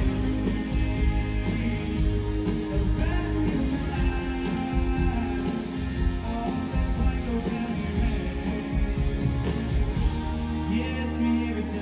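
Live country band playing over a big outdoor sound system, heard from the crowd: electric and acoustic guitars with a steady drum beat.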